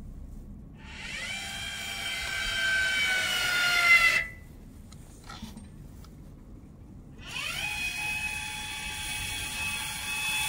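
Electric actuator motor moving the snow plough blade, whining in two runs: one of about three seconds whose pitch sinks slightly, then another of about four seconds that starts a second or so after the middle.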